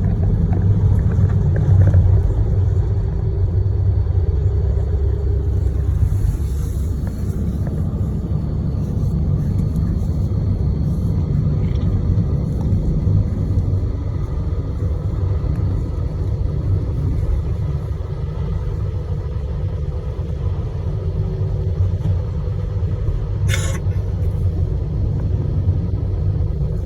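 Road noise from inside a moving car: a steady low rumble of engine and tyres, with one short click near the end.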